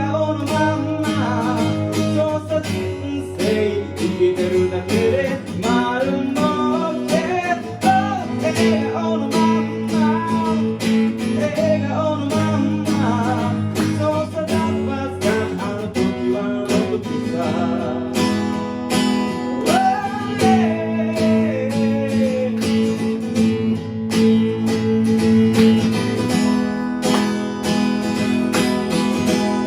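Live song with acoustic guitar strumming steady chords and a wavering melody line over it, without sung words.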